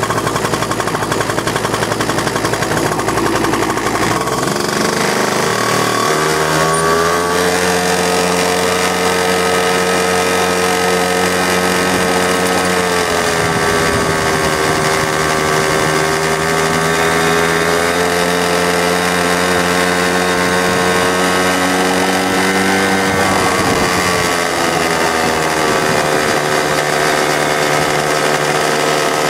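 X-1 pocket bike's small two-stroke engine idling with a rapid rattling beat, then picking up about six seconds in as the bike pulls away and running at a steady pitch. The pitch eases down briefly around midway and shifts again near the end.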